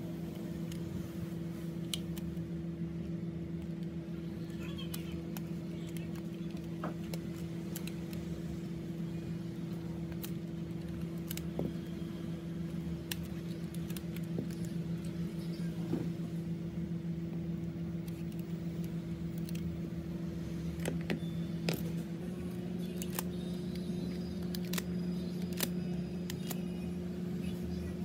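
A steady low electric hum from workbench equipment, rising slightly in pitch about two-thirds of the way through, under scattered small clicks and taps of metal tools on a phone.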